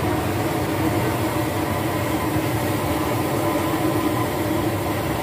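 Steady, unbroken roar of a gas stove burner heating a large wok of green curry.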